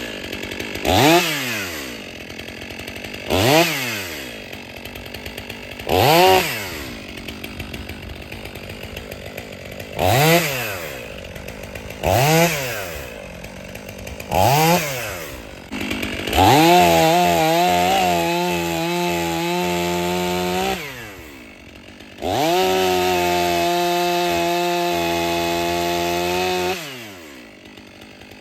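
Stihl 500i two-stroke chainsaw being warmed up: it idles and is revved in six short throttle blips a couple of seconds apart, each rising and falling in pitch. It is then held at high revs for about four seconds, drops back to idle, and is held high again for about five seconds.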